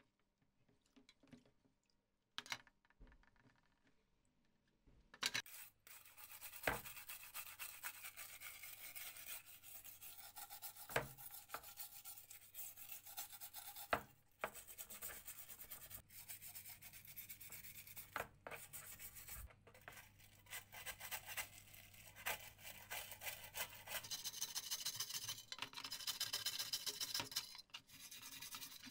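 A stiff hand brush scrubbing flaking red paint and rust off the sheet-metal body of a vintage tin flashlight, in rapid scratchy back-and-forth strokes. The scrubbing starts about five seconds in, after a few faint clicks, and is loudest near the end.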